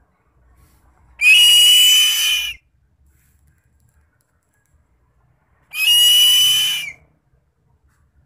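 Two long, high, piercing screams of a bird of prey, each over a second long and dropping in pitch at the end, about four seconds apart.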